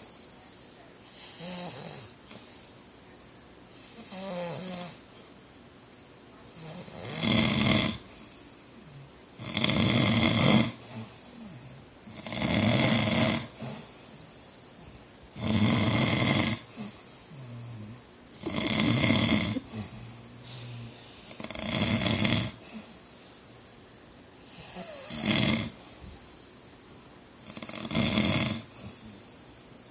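A man snoring loudly in his sleep, one snore about every three seconds. The first couple of snores are weaker; from about seven seconds in each snore is much louder.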